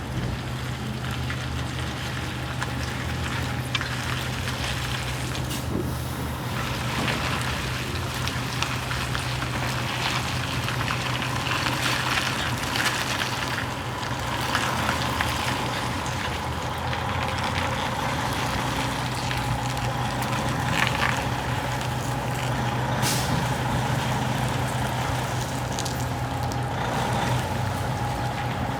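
Truck's diesel engine running steadily, with a short air hiss about six seconds in and another near the end.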